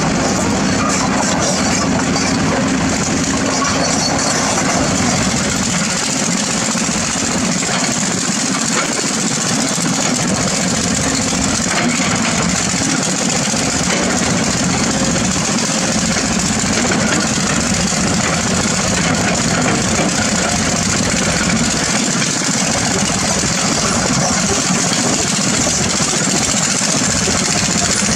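Kobelco SK200 excavator's diesel engine running steadily as the machine works its boom and bucket.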